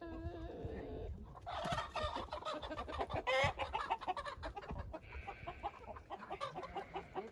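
A flock of young laying hens clucking and squawking, with a dense run of loud squawks from about one and a half to three and a half seconds in and a longer drawn-out call near the end.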